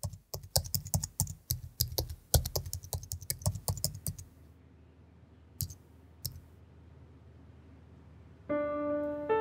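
Fast typing on a laptop keyboard, a quick run of key clicks that stops about four seconds in, followed by two single keystrokes. Near the end, music with sustained held notes comes in.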